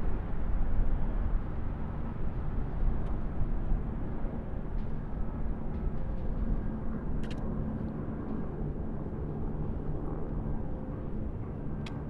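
Waterfall: a steady rush of falling water with a deep rumble, and a few faint clicks here and there.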